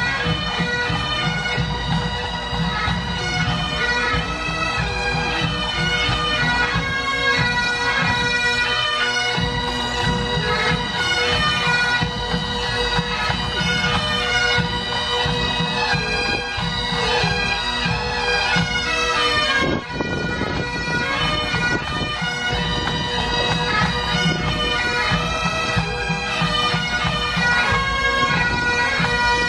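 Massed pipe bands playing Highland bagpipes in unison: a melody over steady drones, with the bands' drums beating underneath, as they march in.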